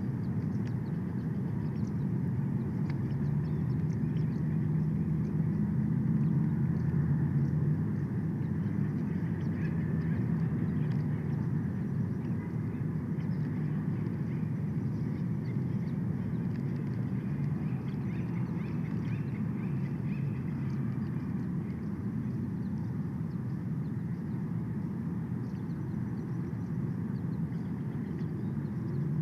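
Steady low outdoor rumble picked up by a nest-cam microphone, swelling slightly a few seconds in, with faint scattered bird calls over it.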